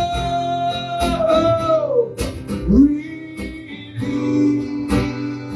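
Acoustic guitar strummed steadily under a singing voice. The voice holds one long note that slides down about two seconds in, then comes in on a lower note.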